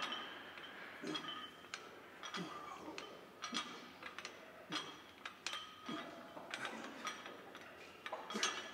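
Light metallic clinks of gym weights, about two a second at an uneven pace, each with a short ringing tone.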